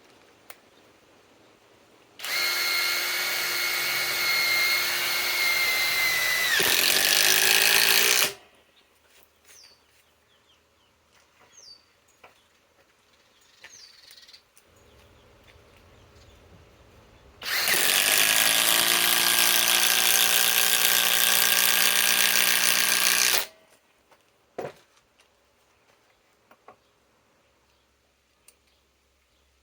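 Cordless compact impact driver driving 4-inch TimberLOK structural screws into wood, in two runs of about six seconds each. The first run drops in pitch and gets louder for its last couple of seconds.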